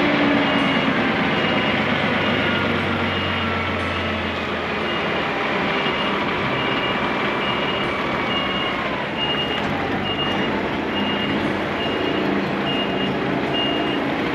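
A truck's reversing alarm beeping evenly and repeatedly over the steady running of its diesel engine as it backs up.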